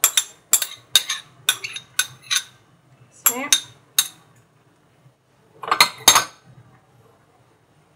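Metal spoon tapping and scraping against a small ceramic bowl about twice a second, knocking diced onion out, followed about six seconds in by a louder clatter as the bowl and spoon are set down.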